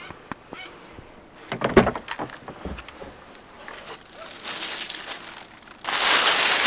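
Black plastic bag rustling and crinkling, loudest near the end, as a plastic-wrapped plate is lifted out of it. A few knocks and one louder thud come about two seconds in.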